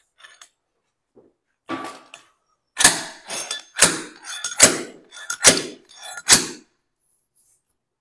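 A nail puller being driven into a maple slab to dig out an embedded nail: about six sharp knocks roughly a second apart, getting louder.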